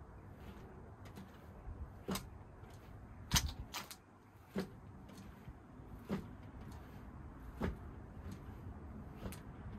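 Training sabre's tip striking a cylindrical thrusting target over and over during extension thrusts: short sharp knocks at uneven intervals, the loudest a close pair about a third of the way in.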